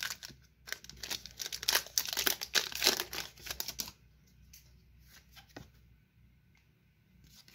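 A trading-card booster pack's foil wrapper being torn open and crinkled for about four seconds, then it goes much quieter, with a few faint clicks.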